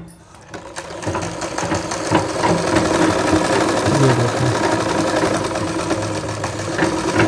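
Umbrella sewing machine starting up about a second in and then stitching steadily through a strip of cloth, with a fast, even clicking of the needle mechanism. It is running a test seam after the bobbin-case thread tension has been tightened.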